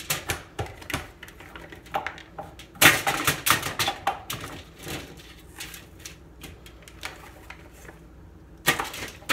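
Kitchen prep noises at a counter: hard taps and clicks, with a quick dense run of them about three seconds in, scattered taps after, and another short burst near the end.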